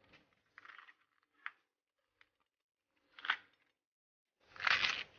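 Pieces of green pepper handled and dropped into a plastic blender jar: a few short crisp rustles and knocks, the loudest near the end.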